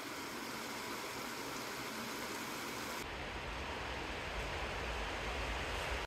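Shallow creek water running over rocks: a steady, even rushing hiss. About halfway through, a low rumble joins it.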